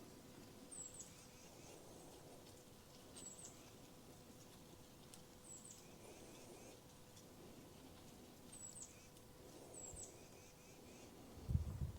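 A small bird repeating a short, very high chirp about every two to three seconds, faint over quiet outdoor background. A low rumble comes in just before the end.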